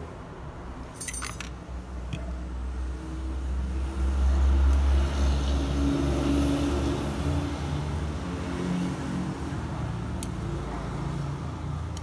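A low engine rumble, louder from about four seconds in. About a second in, a short metallic clatter as a metal PCB holder is picked up and handled.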